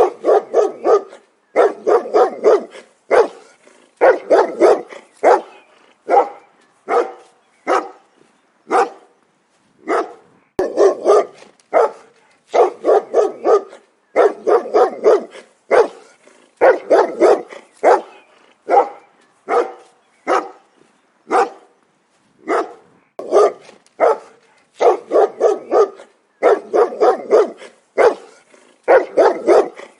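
A dog barking over and over, in quick runs of several barks with short pauses between runs.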